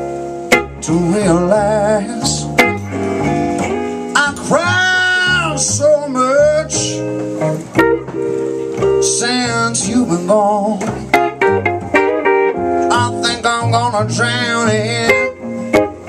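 Slow blues played live: a man sings long, wavering held phrases over a red semi-hollow electric guitar and a plucked upright double bass.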